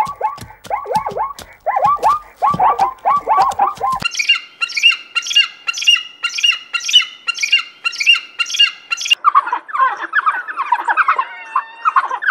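A sequence of animal calls: rapid falling yelps with low thumps for about four seconds, then a steady run of high, ringing calls about twice a second, then a jumble of varied chirps and twitters from about nine seconds in.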